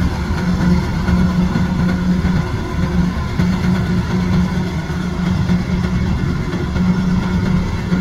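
Kubota combine harvester running steadily while it cuts and threshes rice, a loud, even engine drone with a strong low hum.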